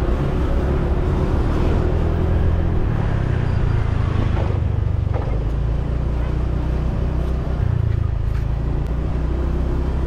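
Motorbike riding along a road: a steady low rumble of the engine and wind on the camera's microphone.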